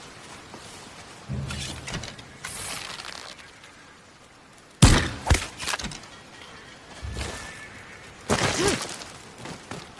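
Hankyu short bow and arrows being handled and shot: a low thud and rustling in the first few seconds, then a sharp crack about halfway through, the loudest sound, with a smaller crack just after it, and a low thud and a noisy scrape near the end.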